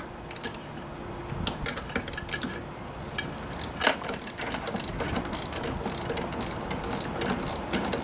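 A 5/16-inch ratcheting box-end wrench clicking in quick, repeated runs of clicks as it is worked on a bolt to loosen it.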